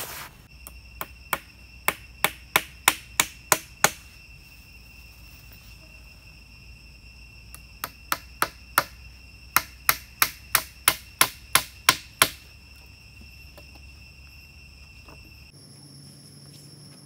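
Two runs of quick hammer blows on wood, about three strikes a second. The first run of about ten builds in force, and after a pause of some four seconds a second run of about thirteen follows.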